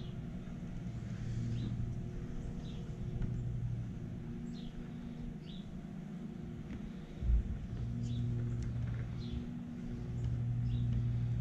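A steady low hum that swells and fades in stretches, with small birds chirping briefly about once a second. Light handling of metal carburetor parts is heard, with a single knock about seven seconds in.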